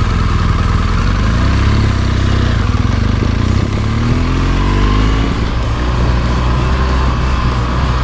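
BMW R1200GS boxer-twin engine running under way, revving up for a couple of seconds in the first half, then holding a steadier pitch.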